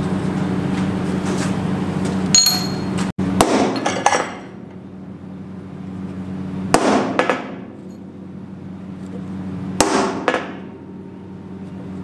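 Hammer striking a centre punch on a small steel bracket plate on a steel workbench: sharp, ringing metal taps, mostly in pairs a few seconds apart, over a steady low hum.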